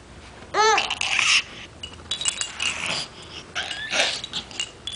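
A baby's short high squeal, then excited huffing breaths and small grunts.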